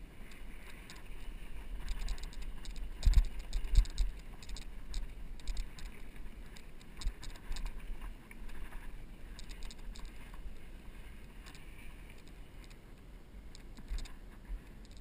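Bicycle riding over rough dry dirt: irregular rattling and clicking from the bike and its mounted camera over a low rumble, with two hard jolts a little after three seconds in.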